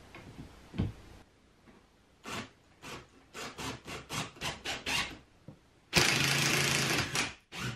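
Cordless drill driving a screw through a plywood French cleat into OSB wall sheathing. First comes a run of short, sharp clicks, about three a second. Then, near the end, the drill runs steadily for just over a second as the screw goes in, missing the stud behind the sheathing.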